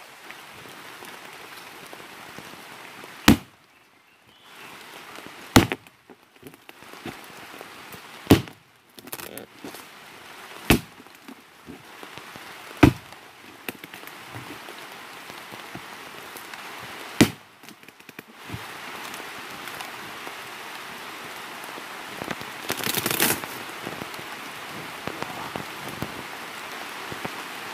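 Six sharp chops of an axe into the hard base of a felled sago palm trunk, coming every two to four seconds, with steady rain falling. Near the end there is a short, louder scraping burst.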